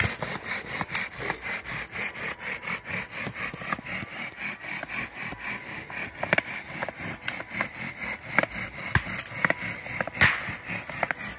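Bow drill being worked: a wooden spindle rubbing in a hearth board with quick, even back-and-forth strokes, several a second, with a squeaky tone. One louder knock comes about ten seconds in.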